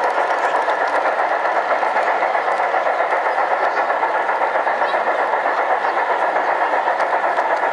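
LGB garden-scale model train running on brass track close up: a steady, fast-fluttering rattle and whir of its motor gearing and wheels on the rails.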